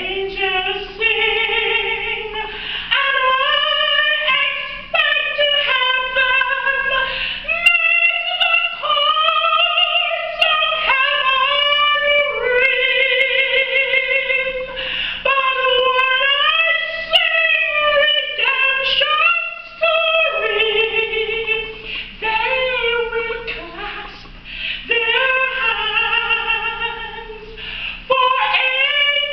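A solo female soprano voice singing a hymn in long phrases, holding notes with a strong vibrato and pausing briefly between phrases.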